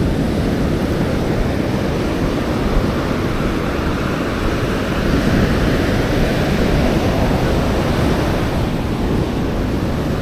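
Steady noise of ocean surf breaking on the beach, mixed with wind buffeting the microphone.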